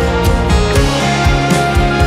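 Background music with a steady beat, about two drum hits a second, under sustained chords.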